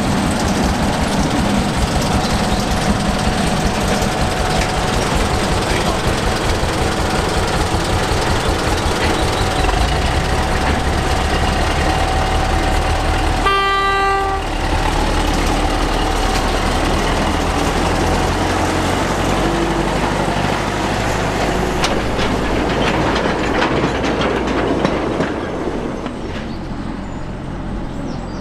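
Small narrow-gauge diesel locomotive's engine running as it moves slowly along, with one short horn toot about halfway through. Near the end the engine sound gives way to quieter background noise.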